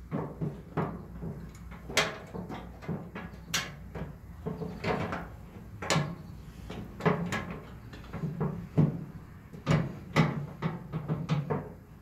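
Irregular metal clicks and knocks of a 1967–72 Chevy C-10 tailgate latch being worked by hand into its opening in the steel tailgate, the part hard to line up.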